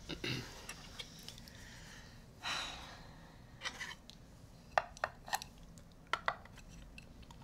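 Quiet dinner-table sounds: a few light, sharp clinks of cutlery on dishes, most of them past the middle, with a brief soft rustle about two and a half seconds in.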